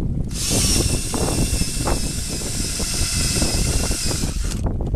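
Corded electric drill running steadily at full speed, boring a bolt hole into a wooden railroad tie; the whine starts just after the beginning and cuts off near the end, with wind rumbling on the microphone throughout.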